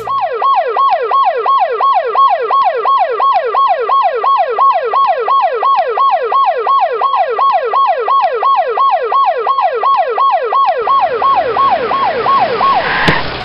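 Ambulance siren: a fast electronic wail that falls in pitch over and over, about three or four times a second. Near the end the siren fades out and a low rumble joins it.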